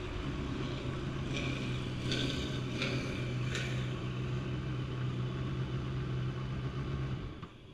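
Kawasaki ZX-10RR's inline-four engine running at low, steady revs as the bike rolls slowly down the pit lane, with a few light clicks in the first few seconds. The engine sound drops away near the end as the bike comes to a stop.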